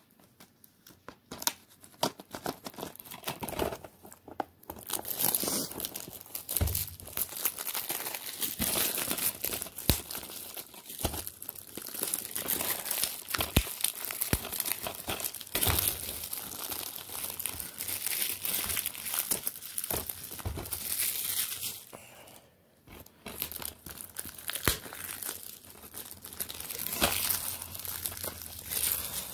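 Plastic shrink-wrap being torn off a DVD case and crumpled: a long run of crinkling and crackling, with a brief lull about three-quarters of the way through.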